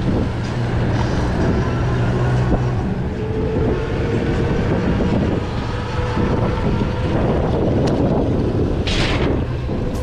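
Wind rushing over the microphone and tyre rumble from a bicycle riding fast downhill, loud and steady, with a faint steady whine underneath and a brief hiss about nine seconds in.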